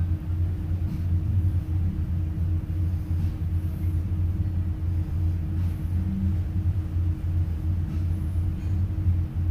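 Towboat's diesel engines running steadily under way, heard from inside the pilothouse as a constant low drone with a fainter, higher steady hum.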